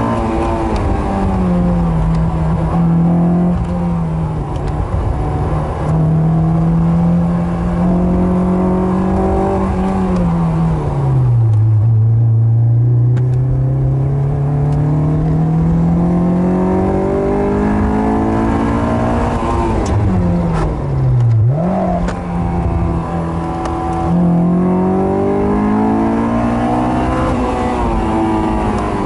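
Car engine heard from inside an open convertible driven through a cone slalom course, rising and falling with the throttle. It mostly holds a steady note, sinks low about eleven seconds in and climbs back, then dips sharply and rises again just past twenty seconds.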